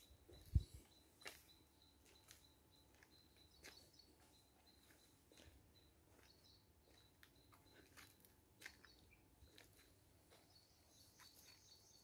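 Near silence in a palm grove: a faint, steady high chirring that grows a little stronger near the end, with scattered faint clicks and one dull thump about half a second in.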